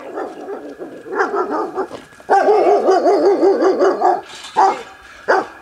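A dog barking and whining, with a long wavering howl in the middle and two short barks near the end.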